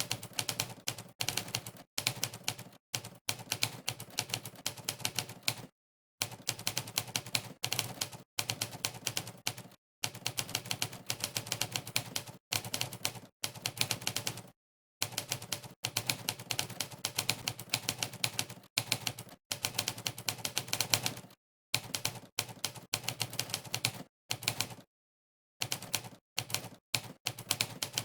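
Typewriter keystroke sound effects from a typing-test website, one clack for each key pressed, in fast runs of several strokes a second. The runs break off every few seconds into short gaps of dead silence.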